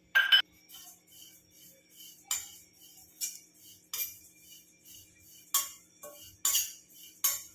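A slotted steel spatula clinking and scraping against a stainless steel kadai while stirring rolled oats as they dry-roast. About seven sharp clinks, loudest at the very start, then the rest spread roughly a second apart.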